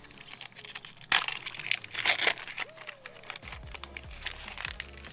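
Foil wrapper of a Pokémon trading card booster pack being torn open and crinkled by hand, in a series of sharp rips and crackles that are loudest about a second in and again around two seconds in. Quiet background music comes in after about three seconds.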